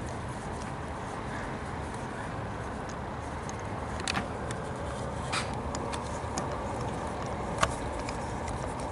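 A few light metallic clicks and taps from a spark plug socket and extension as a spark plug is threaded into the cylinder head by hand, over steady background noise.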